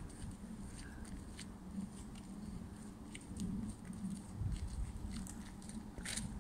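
Faint, scattered crunching of footsteps on a gravel and leaf-litter forest path, over a low rumble.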